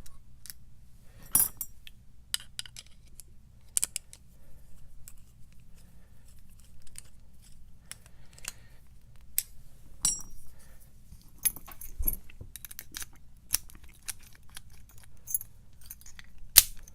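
Small metal parts of an American 1100 padlock clicking and clinking in the hands as the lock is reassembled, a scatter of sharp irregular clicks.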